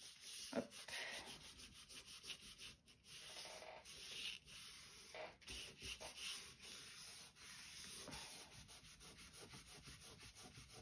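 Faint, irregular strokes of a cloth rubbed back and forth over paper and cardstock, pressing a freshly glued paper booklet flat so it sticks.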